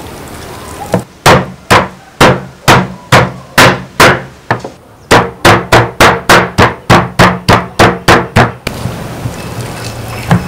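Knife chopping raw chicken on a wooden chopping board: a run of sharp chops about two a second, speeding up to about four a second about halfway through, then stopping.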